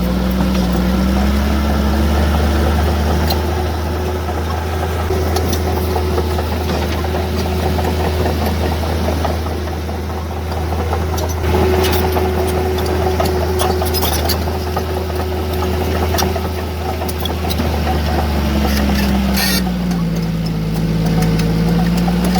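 Heavy earthmoving machine's diesel engine running steadily, its pitch dipping and rising again about a second in and once more near the end, with scattered short clicks and knocks on top.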